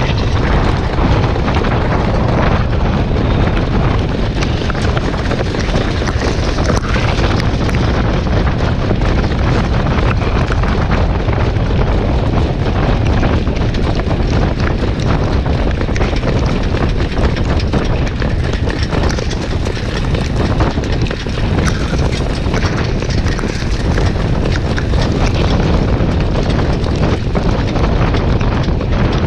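Wind rushing over the microphone of a camera riding a harness-racing sulky at racing speed: a loud, steady rush with a heavy low rumble.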